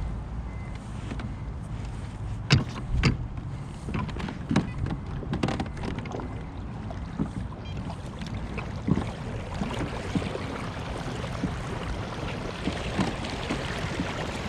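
Fishing kayak underway on the water: a steady low rumble of movement with scattered clicks and knocks from the hull and gear. Two louder knocks come about two and a half and three seconds in.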